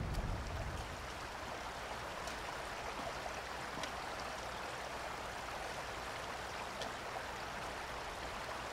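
Shallow stream flowing over stones, a steady, even rushing.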